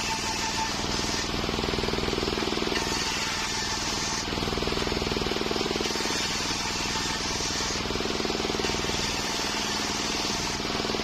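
Home-built circular sawmill running steadily: a motor drone with a rapid pulse, under a high hissing cutting noise that swells and fades every second or two as the blade saws through a waru (sea hibiscus) log.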